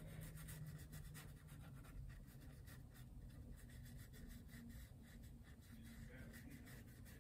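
Fine paintbrush stroking and dabbing paint onto a canvas panel: faint, short, scratchy strokes, several a second.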